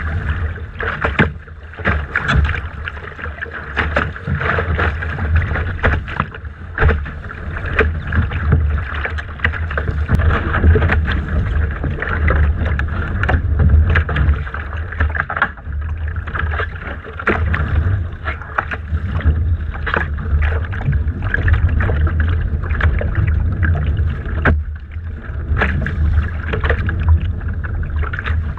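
Water slapping and splashing against a Laser dinghy's hull in choppy water, with many irregular sharp slaps, over a heavy wind rumble on the deck-mounted camera's microphone.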